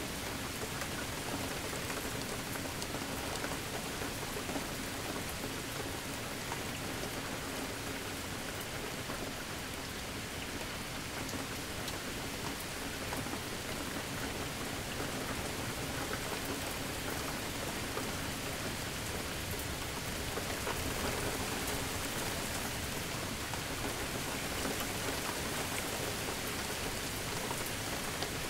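Steady rain falling on surfaces: an even hiss with scattered drop ticks and no thunder clap.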